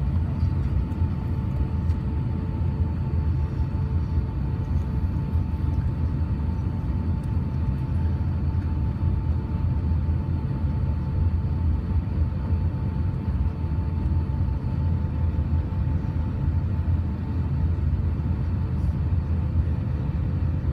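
Steady low rumble of an Airbus A350-900 airliner, with a faint steady whine held over it.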